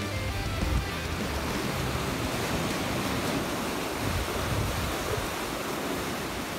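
Steady wash of sea and wind noise at the seaside fishing pier, with wind buffeting the microphone.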